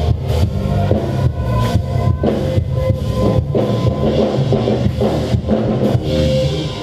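Live band music with a drum kit at the front: steady kick and snare strikes with cymbals over a heavy bass line.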